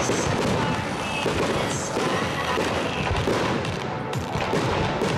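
Aerial firework shells bursting and crackling in quick succession, with music playing along.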